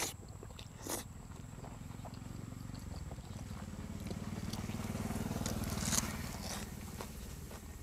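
The low, pulsing drone of a passing vehicle's small engine swells over a few seconds and fades again. Wet chewing and lip-smacking clicks sound close by, the loudest about six seconds in.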